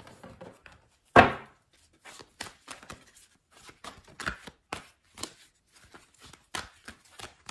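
Tarot cards being shuffled and handled on a table: one loud thump about a second in, then a run of short, irregular card snaps and taps.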